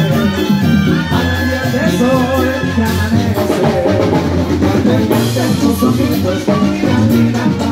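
Live banda sinaloense playing: a sousaphone bass line and trumpets, trombones and clarinets over drums and percussion, in a steady Latin rhythm.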